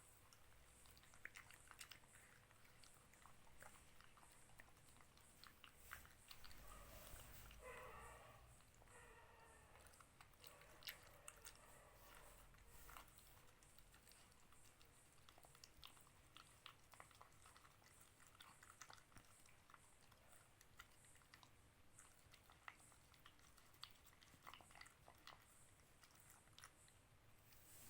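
Dalmatian puppy chewing and biting dog food, faint scattered crunches and clicks. A brief pitched sound with several tones comes about a third of the way in.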